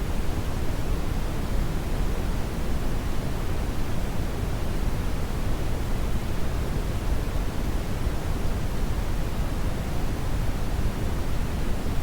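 Brown noise: a steady, even hiss weighted towards the low end, with no changes or events.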